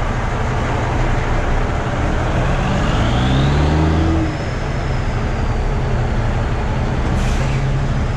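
Diesel truck engine heard from inside the cab, pulling away and rising in pitch through a gear with a high whistle, then easing off about four seconds in. A brief hiss comes near the end.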